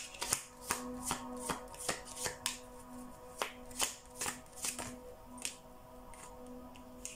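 A tarot deck being shuffled by hand: a run of quick card flicks and slaps, two or three a second, thinning out after about five seconds. Faint background music hums underneath.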